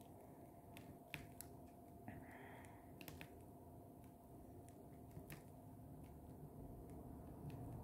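Faint, scattered light clicks of a diamond-painting drill pen tapping into a plastic tray of resin drills and pressing them onto the canvas, over a faint steady hum.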